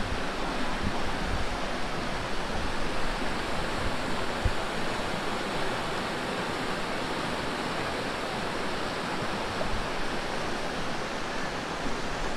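Mountain creek water rushing steadily over a small cascade of white water.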